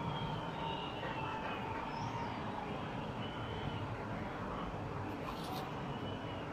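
Steady outdoor background noise with a few faint, high chirping calls.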